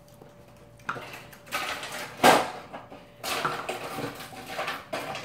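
Tableware noises at a meal, with bowls, plates and chopsticks knocking and clinking in several noisy bursts. The loudest comes a little over two seconds in.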